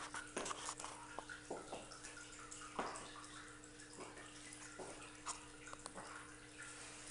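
Quiet room tone with a steady low hum and scattered faint clicks and knocks at irregular intervals.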